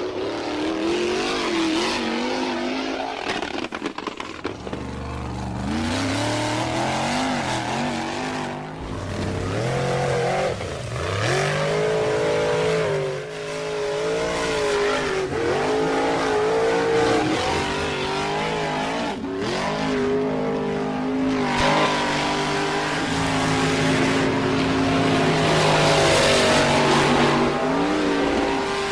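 Racing car engines revving and accelerating, their pitch rising and falling over and over as several cars speed by.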